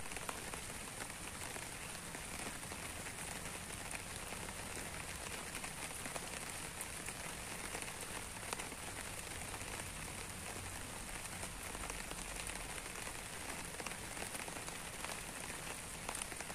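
Steady rain falling on leaves: an even hiss with many small drop ticks.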